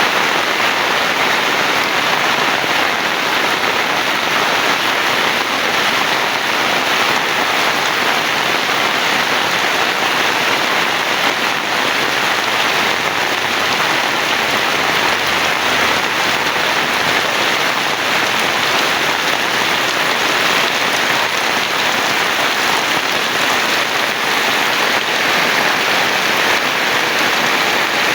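Heavy rain falling steadily, a dense, even hiss of drops hitting the ground and surfaces.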